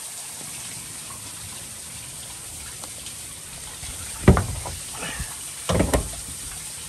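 A hand working a stainless door latch on a trailer's aluminium side door: a loud clunk about four seconds in and a second cluster of clunks a second and a half later, over a steady hiss of spraying water.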